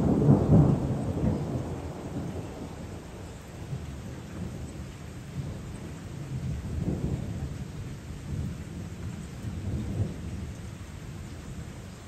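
Thunder: a loud peal breaks right at the start and rumbles away over about two seconds, with more rolls of rumbling around the middle and again near the end, over the steady hiss of rain.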